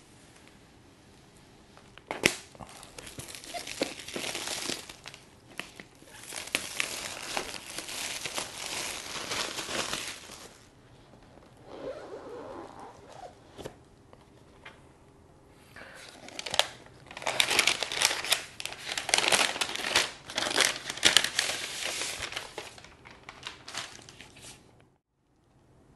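Paper pull-tab strips being torn off a MacBook Pro box and the packaging handled. Two long stretches of tearing and crinkling, each with a sharp snap, are split by a quieter pause.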